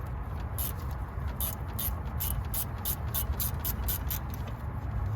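Wrench working a 13 mm brake caliper bolt loose on a Jeep Grand Cherokee's front brake: a run of light metallic clicks, about three or four a second, over a steady low rumble.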